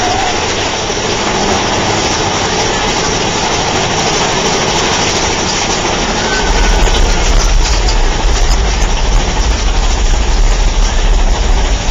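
Big Thunder Mountain Railroad mine-train roller coaster running on its track, a steady loud ride rumble. About six and a half seconds in, a much deeper, louder rumble sets in as the train enters the waterfall cavern and starts up the lift hill.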